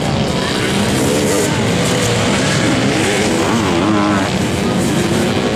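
Engines of motocross sidecar outfits revving hard as they race past, pitch rising and falling again and again with throttle and gear changes.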